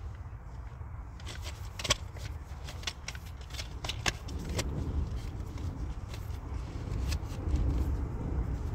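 Light clicks and clatters of plastic makeup compacts and cases being handled and rummaged through, sharpest about two seconds in and again about four seconds in, over a low steady rumble.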